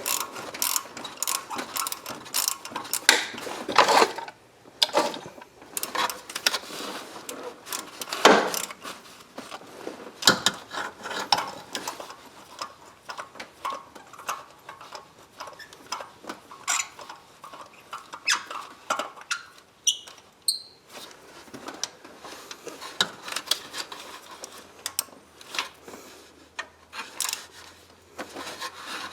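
Hand ratchet and socket clicking in short irregular runs, with small metal clinks of tools, as spark plugs are threaded in and snugged down. A few brief high metallic pings come about two-thirds of the way through.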